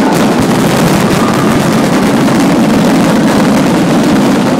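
A dense fireworks barrage, many shells bursting in rapid succession so that the bangs and crackle merge into one continuous, very loud rumble.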